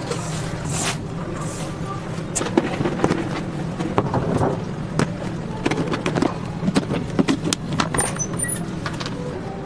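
Plastic food tubs and storage-box lids knocking and clattering on a stainless-steel worktable: a string of sharp clicks and knocks from about two and a half seconds in, over a steady low hum.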